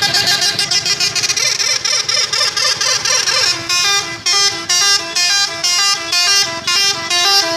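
Bus telolet horn, a multi-tone melody horn, playing a tune: a quick run of notes, then, about three and a half seconds in, separate short notes with brief breaks between them.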